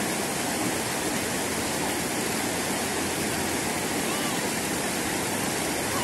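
Clear river water rushing steadily over rocks and boulders, an even, unbroken roar of rapids.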